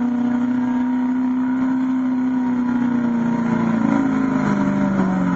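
Diesel engine of a Chevy pickup held at high revs under full load while pulling a sled, one steady note. Near the end the revs drop away in steps as the truck slows at the end of its pull.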